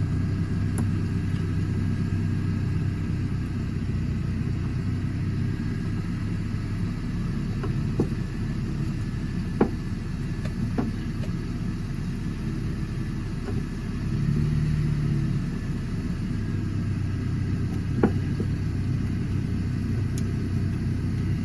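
A steady low mechanical rumble and hum, with a few short sharp clicks scattered through it. The clicks come from a screwdriver and metal parts as the screws of the door lock actuator are worked out inside the door.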